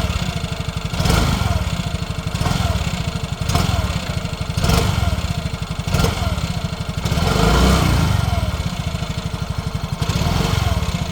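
Yamaha Ray ZR 125 scooter's engine running steadily, with a knock from the rear wheel side about once a second, each followed by a short falling squeak. It is an intermittent weird noise whose cause the owner does not know.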